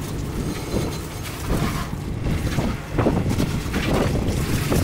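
Garden hose spraying water onto a boat deck, with an irregular splashing hiss, under steady wind buffeting the microphone.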